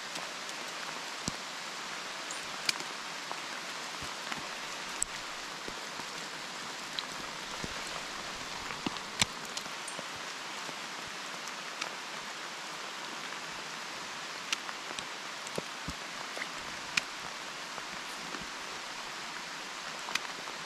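Steady rain falling, an even hiss, with scattered sharp ticks now and then.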